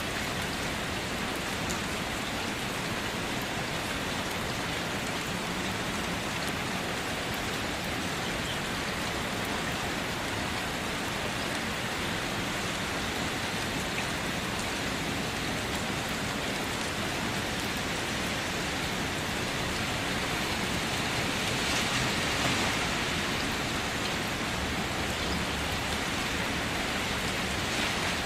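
Steady rain falling and pattering on a surface, a dense even hiss with scattered drop ticks, swelling a little about three quarters of the way through.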